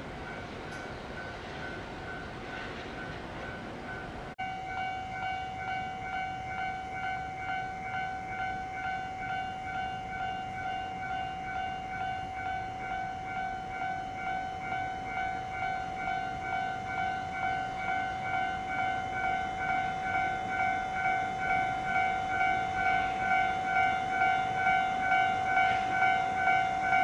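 An electronic railway warning alarm: a tone pulsing in an even repeating beat, fainter at first, louder from about four seconds in and growing louder still. It warns of an approaching train.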